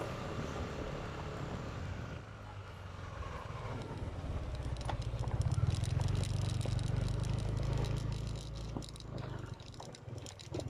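Motorcycle engine running while being ridden along a road: a low steady drone that grows louder about four seconds in.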